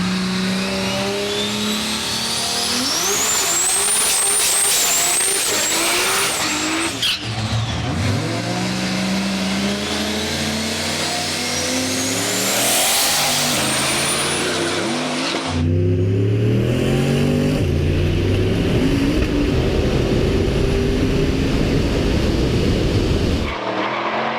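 Drag race cars launching and accelerating hard, their engines climbing in pitch and dropping back through gear changes, with a high whine rising over them. The sound changes abruptly a few times.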